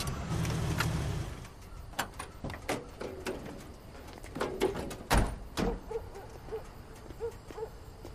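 Vehicle engine running for about the first second, then cutting off. Scattered clicks and knocks follow, with one heavy thud about five seconds in, like a car door shutting. Faint short tones repeat several times near the end.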